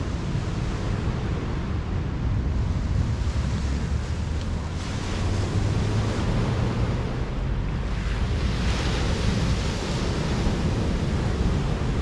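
Sea surf breaking on a sandy beach and against rocks, with wind buffeting the microphone as a low rumble. The wash swells up about five seconds in and again, more strongly, around nine seconds as waves break.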